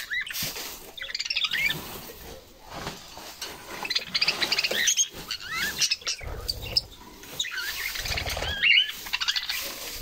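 Pet budgerigars chirping and warbling in quick, wavy bursts that come and go in clusters, with a low flutter of wings about six seconds in.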